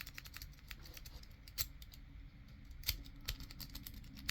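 Triple peak rake rocking in the keyway of a small brass padlock: faint, irregular light metallic clicks and ticks of the pick against the pins, with a couple of sharper clicks about a second and a half and three seconds in.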